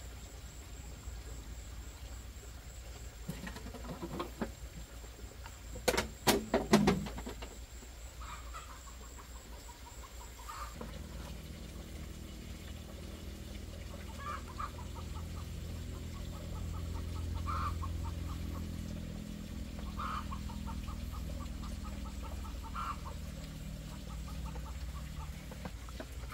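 Chickens clucking in short repeated bursts, with a quick run of sharp knocks about six seconds in and a low steady hum starting about ten seconds in.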